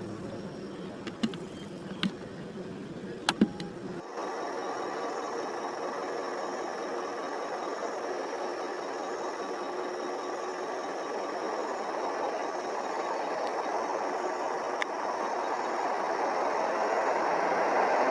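A vehicle engine running steadily, with a few sharp clicks in the first few seconds. The sound changes abruptly about four seconds in, and from there it grows slowly louder.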